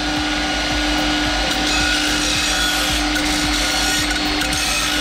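Floor-standing belt grinder running, with steel angle iron held against the abrasive belt: a continuous grinding rasp over a steady hum, taking the burrs off the cut ends.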